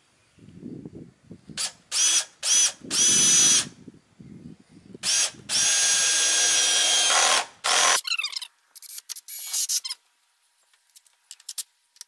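Cordless drill/driver driving screws into plywood: a few short trigger pulls, then a longer run of about two seconds, the motor whine rising as it spins up each time. Scattered clicks follow near the end.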